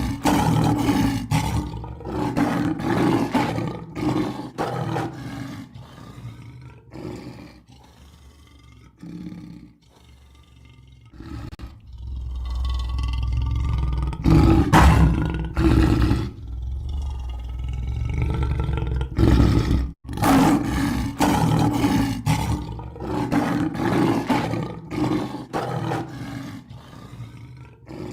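Lion roaring: bouts of deep, grunting roars repeating about every half second, with a long, low rumble in the middle.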